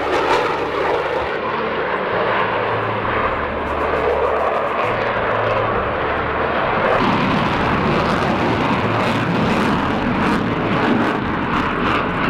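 Jet noise from a Eurofighter Typhoon's twin EJ200 turbofans as it flies a display, a continuous rushing roar that grows fuller and lower from about seven seconds in.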